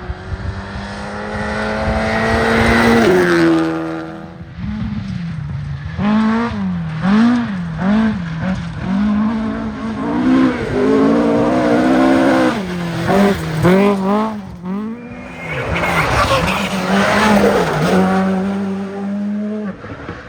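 Rally car engine revving hard, its note rising and falling quickly many times through gear changes and lifts, with a sharp drop in pitch about three seconds in and a steady held note near the end.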